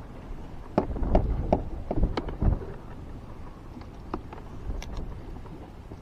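A quick run of knocks and clatters, with a few low thumps, about a second in, then scattered lighter clicks over a low rumble: things being handled aboard a small fishing boat.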